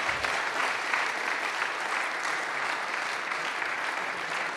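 Audience applauding steadily, a dense clatter of many hands clapping.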